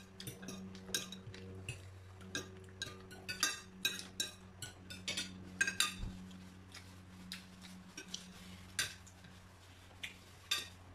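Forks and spoons clinking and scraping on ceramic plates during a meal: many irregular light clicks, over a low steady hum.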